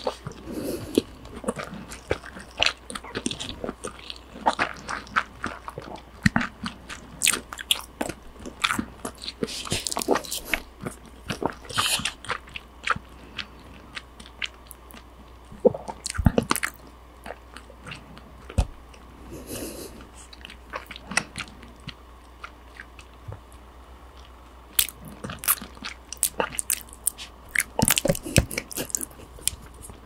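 Close-miked chewing and mouth sounds of a person eating rice, with many short sharp clicks and smacks, sparser for a few seconds past the middle.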